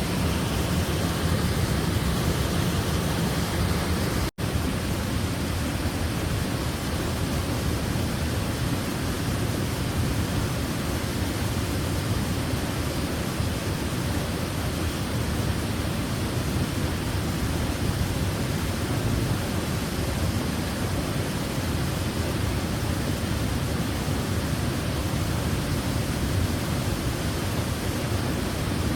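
Waterfall: a steady, even rush of falling water, fullest in the low end. It breaks off for a split second about four seconds in.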